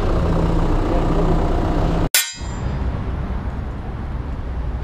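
Steady wind and road noise from riding a bicycle along a road with traffic. About two seconds in, the sound drops out for an instant, then a sharp metallic click rings briefly and dies away.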